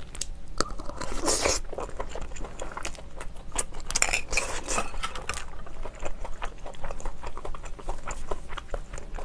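Close-miked eating of steamed shellfish meat: two louder wet stretches as it is taken into the mouth, about a second in and again around four seconds, then many quick small clicks of chewing.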